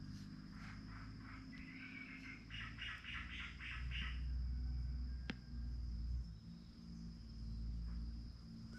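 Faint insect chirping: a quick run of high pulses, about five a second, from about half a second to four seconds in, over a steady thin high whine and a low hum.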